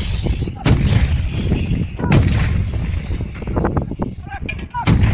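Truck-mounted howitzers firing: three heavy shots, each trailing off in a long low rumble. The first two come about a second and a half apart; the third comes near the end.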